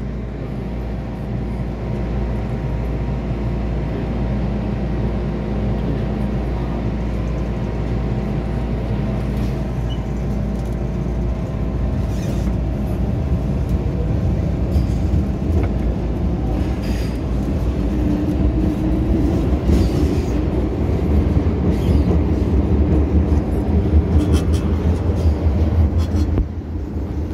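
MTR M-Train electric multiple unit pulling away from an underground station and gathering speed: a steady low hum with a few held motor tones, the running noise slowly growing louder, with scattered clicks from the wheels in the second half.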